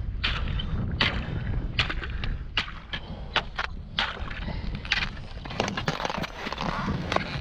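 Metal-tipped ice chisel striking and cracking pond ice over and over, chopping open a frozen-over hole. The sharp strikes come irregularly, about one or two a second, among crunching, broken ice.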